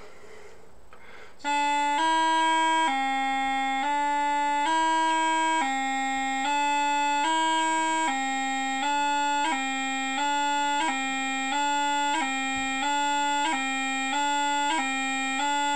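Scottish bagpipe practice chanter playing a gracenote exercise. It starts about a second and a half in and alternates steadily between two notes, low A and C, with a short high E grace note blipped in at each change.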